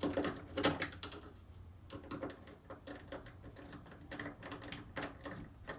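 Irregular small clicks and taps of a hand screwdriver working the screws of a front-loader washer's door hinge, tightened a little at a time on each end.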